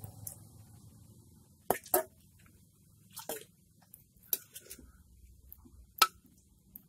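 Empty aluminium beer cans handled and set down, giving a handful of short, sharp clicks and knocks: two close together about two seconds in, and the loudest about a second before the end.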